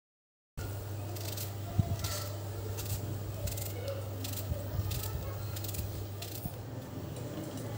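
Onion being sliced by hand with a small knife over a steel bowl: repeated short crisp cuts and pieces dropping into the bowl, with one sharper knock near two seconds in, over a steady low hum. The sound starts suddenly about half a second in.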